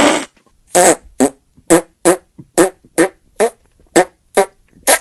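A long, loud fart sound cutting off right at the start, then a quick string of about ten short, pitched little fart sounds, roughly two a second.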